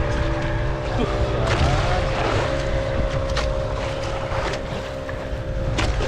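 Boat engine running steadily, with wind on the microphone and a few short knocks.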